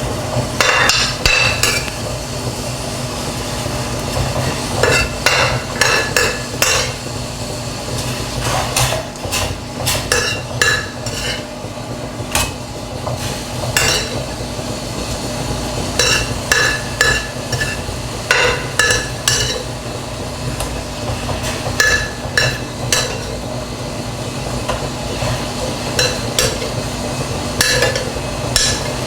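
Metal spoon stirring in a metal cooking pot, clinking against its sides in short runs of strikes every second or two, over a steady low hum.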